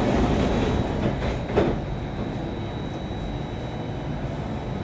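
Metro train carriage's air-conditioning running loud and steady, with a thin high whine over the rush of air. About a second and a half in, the doors thud shut.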